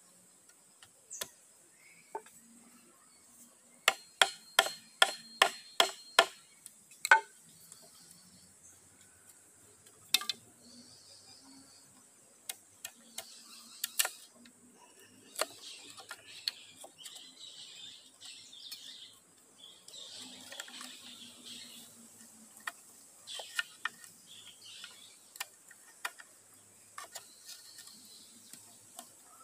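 Sharp taps and knocks on a green bamboo pole. About four seconds in comes a quick run of about eight taps at roughly two a second, followed by scattered knocks and scraping as the pole is worked by hand.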